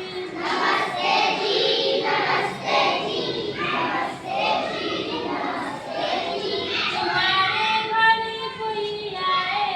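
A child singing a song, with held and gliding sung notes.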